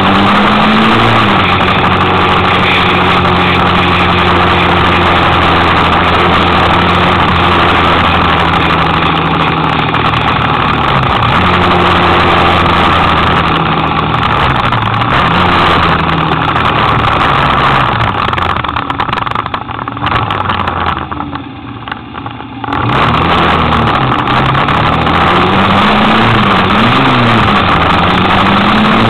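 Kymco Quannon 125cc motorcycle engine running under way, its pitch holding, then rising and falling as the rider accelerates, changes gear and eases off, over steady wind and road noise. About two-thirds through it drops to a quieter low running for a few seconds, then climbs again with quick rises and falls in pitch.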